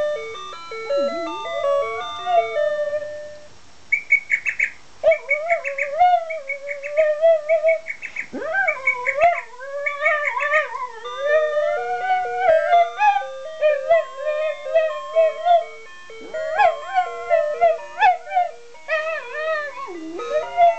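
A dog howling along to an alarm clock's electronic chime melody. The howl wavers up and down in pitch over the clock's stepped notes, pausing briefly about three seconds in.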